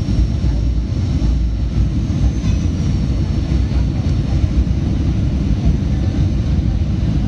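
Aircraft noise during a landing in strong wind: a loud, steady low rumble with no distinct events.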